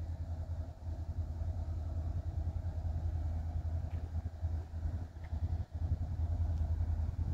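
Low, steady rumble of an unseen engine.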